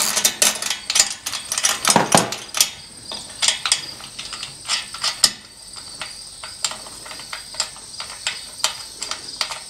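Ratchet wrench clicking as it turns a nut on a carriage bolt, in a run of sharp clicks that settles to about three a second.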